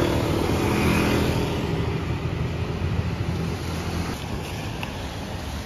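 Street traffic: a motor vehicle engine running close by, loudest at first and fading away as it passes.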